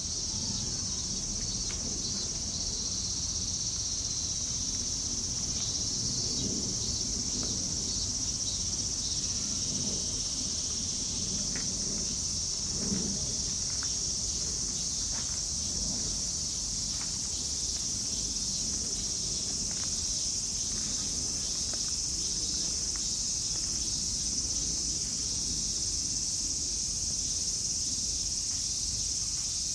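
Steady high-pitched insect chorus, unbroken throughout, over a low background rumble, with a few faint knocks around the middle.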